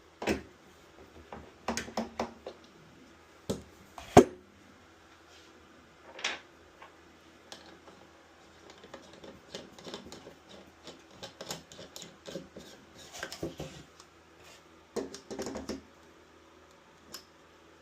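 Metal parts of a RØDE PSA1+ studio microphone boom arm being handled and fitted together: scattered clicks, knocks and light clatter, with one sharp knock about four seconds in.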